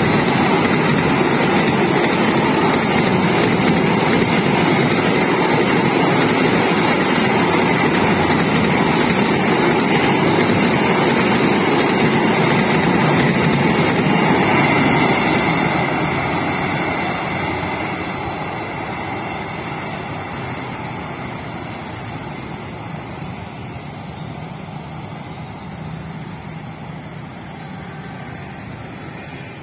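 Wheels of a container freight train's flat wagons running on the rails as the train passes, loud and steady, then fading over the second half as the end of the train moves away.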